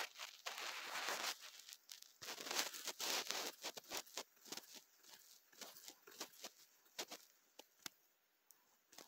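Faint rustling and crinkling with scattered sharp clicks, heaviest in the first few seconds and thinning to sparse clicks in the second half.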